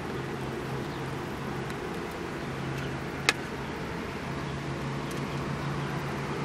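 Steady low hum of a car engine idling, heard from inside the cabin, with one sharp click about three seconds in.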